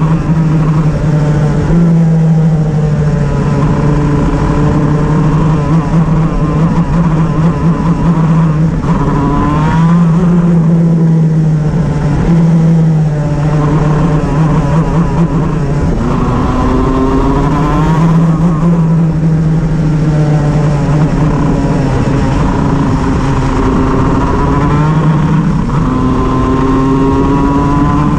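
Shifter kart engine running hard, its pitch climbing and dropping again several times, with a misfire roughening and breaking up the note.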